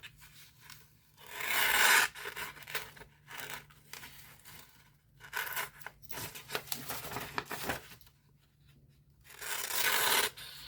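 Small stainless steel keychain knife slicing through paper to test the sharpness of its edge: a series of short rasping cuts, with longer, louder strokes about a second and a half in and again near the end.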